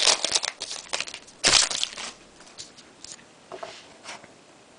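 Foil trading-card pack wrapper crinkling while hockey cards are handled, in irregular rustling bursts with the loudest at about a second and a half in, then fainter rustles.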